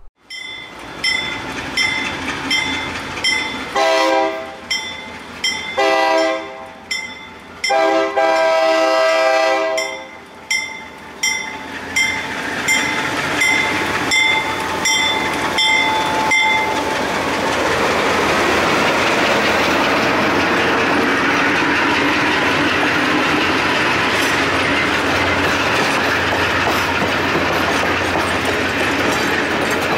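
GE U23B diesel locomotive pulling out with a passenger train. Its bell rings steadily, and its air horn sounds two short blasts and then a long one. The bell stops about halfway through, and the train rolls past with a steady rumble and the clack of wheels over rail joints.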